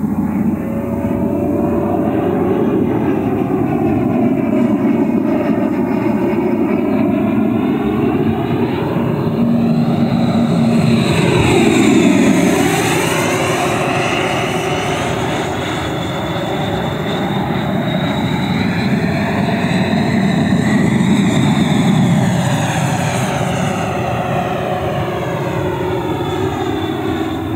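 JETFAN-120 PRO electric ducted fan on a radio-controlled jet running hard in flight, a steady rushing whine that swells as the jet passes. It is loudest about twelve seconds in and again around twenty-two seconds.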